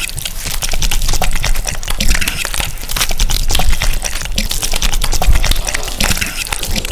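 Sound-design effect of thick wet matter pouring and gushing down, made of many small wet clicks and pops over a low rumble.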